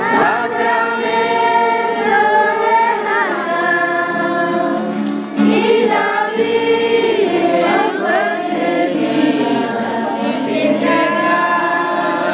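A group of voices singing a church hymn, holding long notes.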